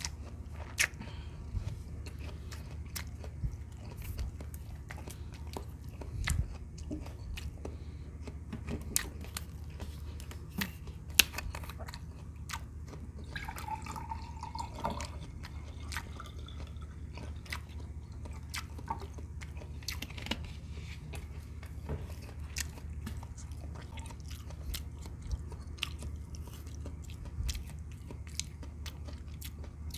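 Close-up chewing and wet mouth clicks from a mouthful of fried chicken nuggets, over a steady low hum. About halfway through, water is poured from a plastic bottle into a drinking glass for a couple of seconds.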